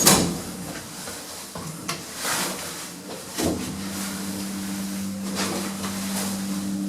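Passenger lift in operation: a knock about three and a half seconds in, then a steady low motor hum as the car runs.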